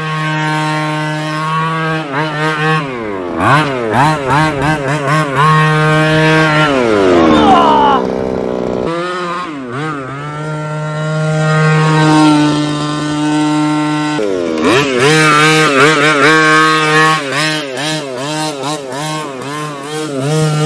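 Small 25cc two-stroke petrol engine of a large-scale RC car, a buzzing, chainsaw-like sound, revving up and down as the throttle is worked. It holds steady revs for stretches and drops sharply in pitch a couple of times, around three and seven seconds in.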